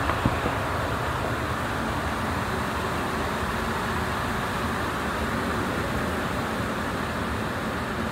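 Steady background noise, with two small clicks in the first half second.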